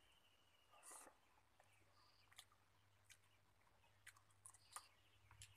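Faint eating sounds: fingers working rice on a plate and chewing, with a few soft scattered clicks and smacks.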